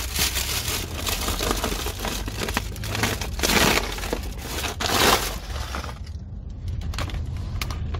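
Plastic snack bag and packaging rustling and crinkling as they are rummaged through, with louder crackling bursts about three and a half and five seconds in. A steady low car-cabin hum runs underneath.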